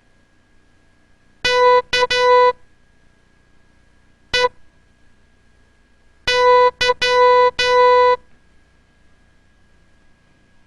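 Morse code sent as a steady beep of one pitch: dah-dit-dah, a single dit, then dah-dit-dah-dah, spelling the letters K, E, Y as a word to decode.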